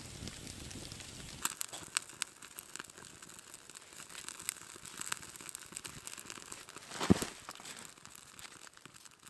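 Wood campfire crackling, with sharp irregular snaps and pops and one louder pop about seven seconds in, fading out near the end. It follows a low steady rush in the first second and a half.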